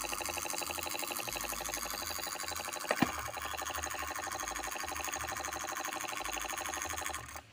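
Small DC electric motor mounted in a cardboard miniature truck, running steadily with a fast, even pulsing. It stands in for the truck's engine being warmed up. There is a sharp click about three seconds in, and the sound cuts off suddenly near the end.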